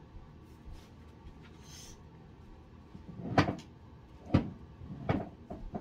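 A wooden ladder-back chair being pulled out and sat on at a table, with three sharp knocks about a second apart in the second half and a few lighter taps.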